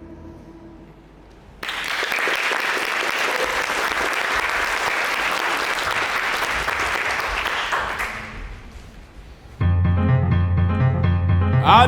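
Audience applauding for about seven seconds, then fading out. Near the end, the music for the next number starts abruptly.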